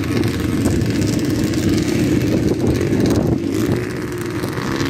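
Dirt bike engines running, their level rising and falling unevenly.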